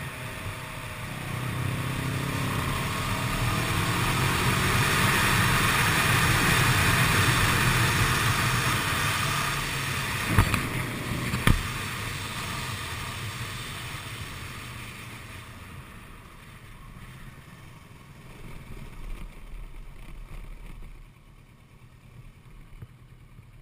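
Kawasaki ER-6n's parallel-twin engine running under way with a steady rush of wind and road noise, growing louder over the first several seconds and then fading away as the bike slows. Two sharp knocks come about ten and eleven seconds in.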